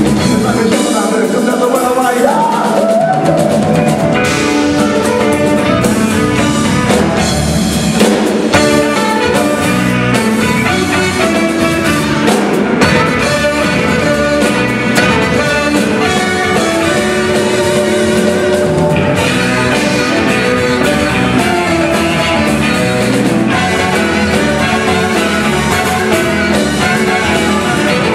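Live band playing an instrumental passage: saxophones lead over drum kit, electric bass and keyboard.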